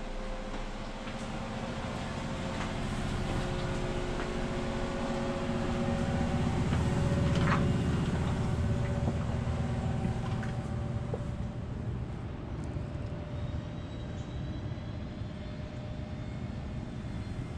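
Low rumble of a passing vehicle with a few steady engine tones, swelling to its loudest about halfway through and then slowly fading.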